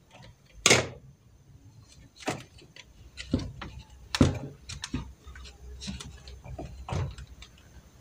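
Hard plastic clicks and knocks from the body unit of a Bolde Smart Hoover Aquaman cordless wet-dry floor cleaner being handled and seated, about six at irregular intervals, the loudest about a second in and again about four seconds in.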